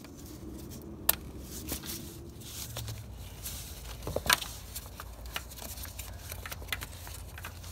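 Small clicks and rustles of a gloved hand handling a brake vacuum hose and its plastic quick-connect fitting, with one sharper click about four seconds in, over a steady low hum.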